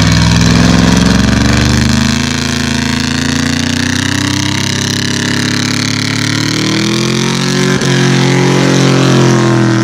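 Chevrolet Silverado pickup's engine revving hard through a burnout, its rear tires spinning on asphalt. The engine pitch sinks about two seconds in, then climbs steadily again over the last few seconds, with a short knock near the end.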